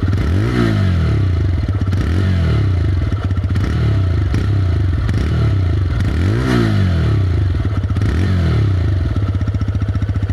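TVS Raider 125's single-cylinder engine revved in neutral: the throttle is blipped about six times, each rev rising and falling back, then it settles to a steady idle near the end.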